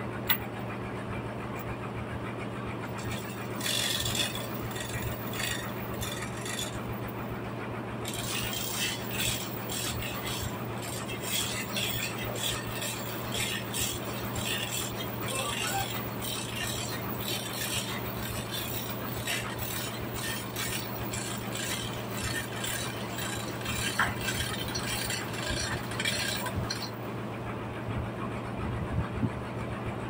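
Rapid metallic clicking and clinking of a chain hoist's chain and ratchet: a short spell about four seconds in, then almost without pause from about eight seconds until near the end. A steady low machine hum runs underneath.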